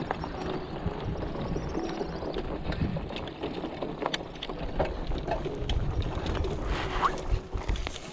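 Bicycle ridden over rough, grassy off-road ground: a steady low rumble with scattered clicks and rattles from the bike.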